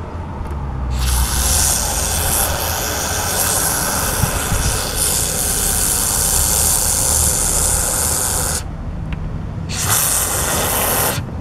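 Can of Great Stuff Big Gap Filler polyurethane spray foam hissing as foam is dispensed through its straw applicator. There is one long spray of about seven seconds, then after a short pause a second burst of about a second.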